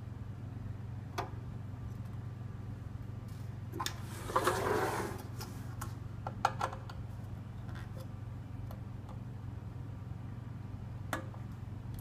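Phillips screwdriver working screws out of a steel server chassis: a few small clicks and taps of metal on metal, with a short scraping rustle about four seconds in, over a steady low hum.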